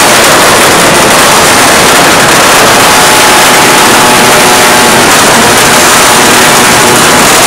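Several small motorcycle engines with racing exhausts being revved hard at once in a revving contest, so loud that the recording is overloaded into a constant, distorted blare.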